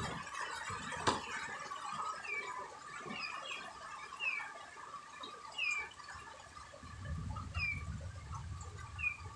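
Birds chirping: short, high, falling peeps repeating irregularly about once a second over a faint steady hum. Quiet wet handling sounds come from squid being stuffed by hand.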